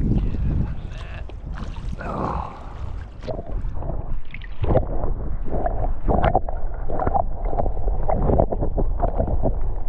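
Lake water sloshing and gurgling around a submerged camera: a muffled, churning underwater rumble with scattered small clicks.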